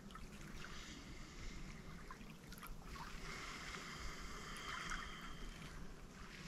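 Faint outdoor background: a soft steady hiss with a few light ticks.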